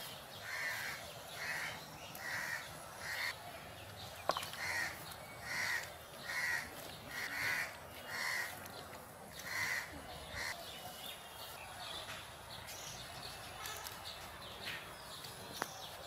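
A crow cawing over and over, about ten caws at roughly one a second, that stop about ten seconds in. One sharp click sounds about four seconds in.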